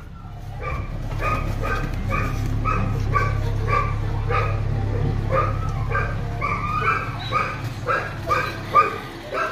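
A dog barking rapidly and repeatedly, a few short yaps a second, over the steady low hum of an idling vehicle engine.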